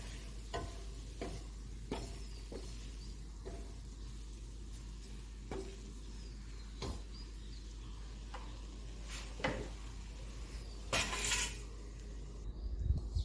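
A utensil stirring egg and vegetables in a frying pan, with scattered knocks against the pan and one longer scrape near the end.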